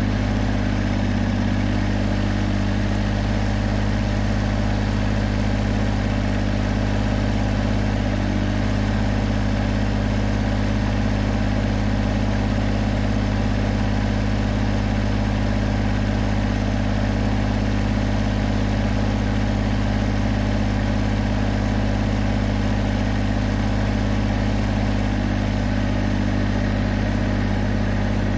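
Massey Ferguson GC2310 compact tractor's diesel engine running steadily.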